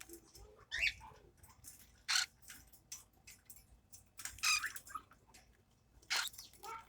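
Young parrots giving a few short chirps and squawks, the longest about midway, with small clicks and ticks in between.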